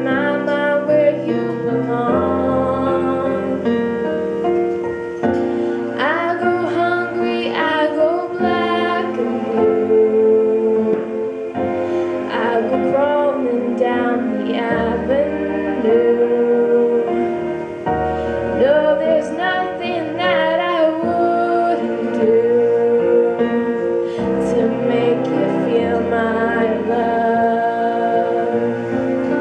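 A slow song played over a loudspeaker: a woman singing over piano.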